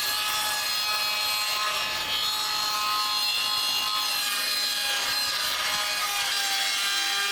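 Power saw cutting plywood: a steady whine with the hiss of the cut, holding at an even pitch and level throughout.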